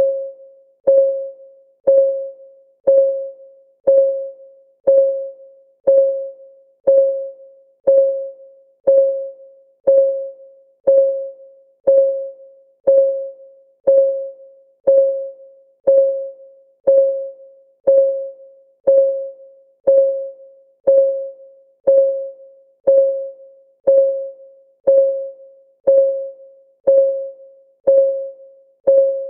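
Countdown timer's ticking-clock sound: one short tick every second, evenly paced, each a single mid-pitched note that dies away quickly.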